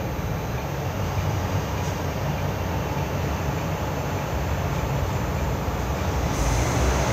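City bus running through an underground busway, heard from inside the cabin: a steady low engine and road rumble that grows louder, with more hiss, about six seconds in.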